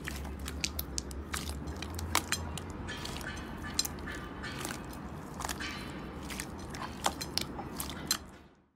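Hands pressing and kneading clear slime, giving a dense run of irregular crackling clicks and pops over a steady low hum; it fades out near the end.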